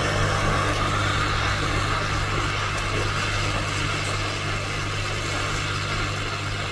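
Hot air rework station blowing steadily, a constant fan hum with an airy hiss, as used to lift and replace a charging IC on a laptop motherboard.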